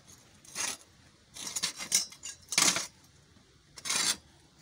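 Sheet-metal stove parts and tools clinking and scraping on a metal workbench as they are handled, in about five short separate clinks, the loudest a little past halfway.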